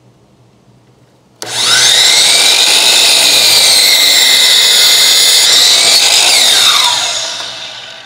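DeWalt sliding compound miter saw switched on about a second and a half in, its motor whine rising quickly to full speed, then running steadily while cutting a bundle of five wooden slats at once. Near the end it is released and winds down, its whine falling in pitch.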